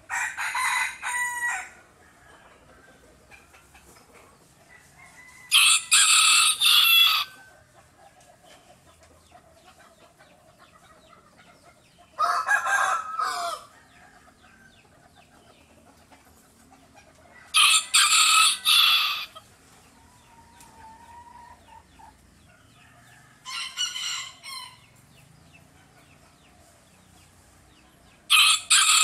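Roosters crowing: six long crows, one about every five to six seconds, with only faint background between them.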